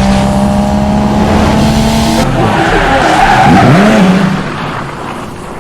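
Loud edited sound effect of a race car skidding with tyres squealing, a rush of noise with wavering engine tones. It fades away near the end.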